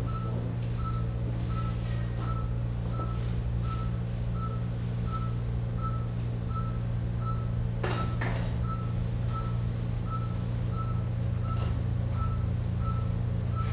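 Operating-room patient monitor beeping its pulse tone, a short steady-pitched beep at an even rate of roughly 85 a minute, over a steady low machine hum. About eight seconds in, a couple of sharp clatters of metal surgical instruments on the tray.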